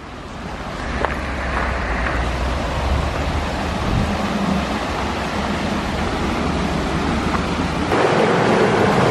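River water rushing over rocks in shallow rapids, a steady roar, with a low wind rumble on the microphone. About eight seconds in the rumble stops and the rushing water grows louder and closer.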